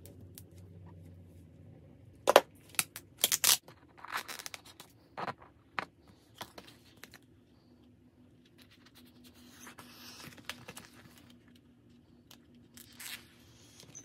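Scissors snipping and trimming a thin plastic vinyl sheet, with scattered sharp clicks and crinkles as the sheet is handled and smoothed down by hand.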